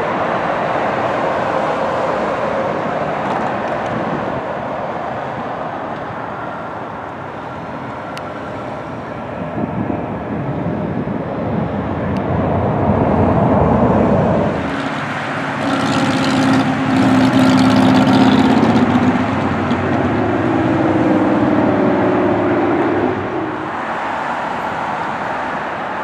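Jet engine noise of Airbus A319 airliners at the runway: a steady rumble at first, dipping a little, then swelling louder from about halfway through, with a steady engine tone on top, loudest a little after the middle before easing off near the end.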